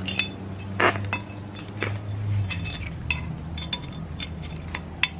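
Light metallic clinks and taps as the angle grinder's guard and its wave washer are handled and fitted back onto the gear head, over a low steady hum. The loudest clink comes about a second in, with another strong one near the end.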